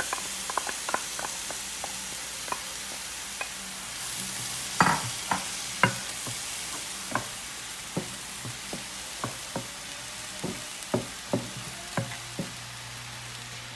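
Mixed vegetables and egg sizzling steadily in a frying pan while a wooden spatula stirs them, knocking and scraping against the pan in sharp, irregular taps.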